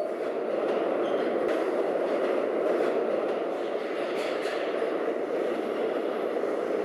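Subway train running: a steady rushing rumble with no distinct tones.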